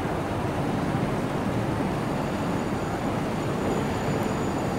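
Electric commuter trains running slowly in over the junction toward the platform, a steady noise with no distinct wheel clicks.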